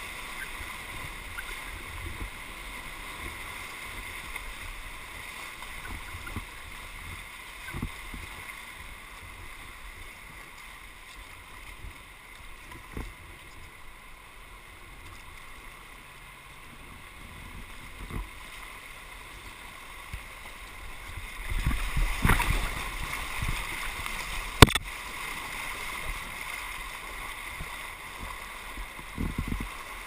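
Whitewater rushing steadily around an inflatable kayak running rapids, with scattered paddle splashes and knocks on the hull. About 22 seconds in the splashing gets louder, and a sharp knock follows a couple of seconds later.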